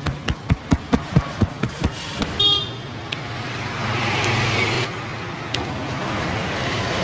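Rhythmic hand slaps of a percussive head massage, about four a second, stopping about two seconds in. A short vehicle horn toot follows, then street traffic noise with a passing engine hum.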